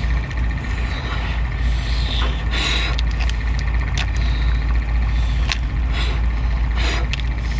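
Lobster shell being cracked and pulled apart by hand: a series of sharp cracks and crunchy snapping as the head is broken open. Under it runs a steady low hum.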